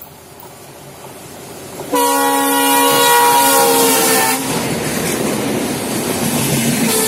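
Twin ALCO diesel locomotives hauling an express, growing louder on approach. About two seconds in, the lead locomotive's horn sounds a loud chord of several tones for about two seconds, dropping slightly in pitch as it passes. Then comes the heavy rumble and clatter of the locomotives and coaches rushing by at speed, and another horn starts near the end.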